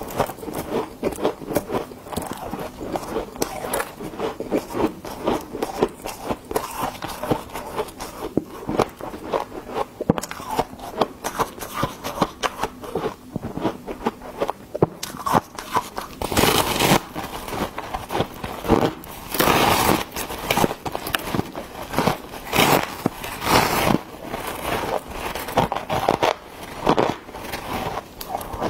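Biting into and chewing a slab of refrozen freezer frost: close, continuous crisp crackling as the ice crystals break up in the mouth, with several loud crunching bites in the second half.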